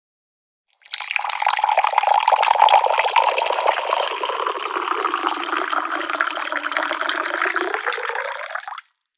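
Liquid poured into a cup, a steady splashing stream filling it. It starts about a second in, runs for about eight seconds and stops abruptly near the end.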